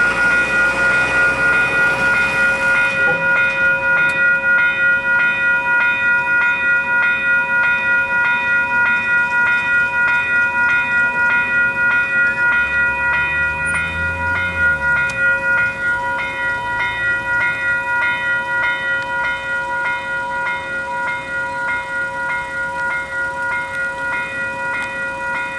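Railway level crossing warning bells ringing with rapid, evenly repeated strikes on one steady chord, sounding because the crossing has activated for an approaching train. A low rumble rises and fades about halfway through.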